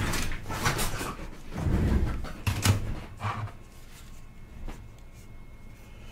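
Rustling, knocks and low thuds of someone settling in front of the camera and handling objects for the first three seconds or so, then quiet room tone.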